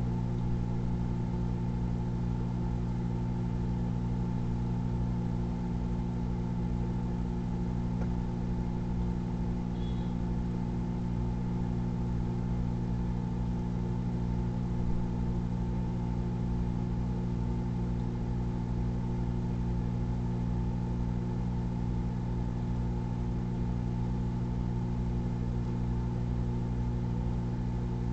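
Microwave oven running: a steady low electrical hum with a regularly pulsing low end, and a faint click about halfway through.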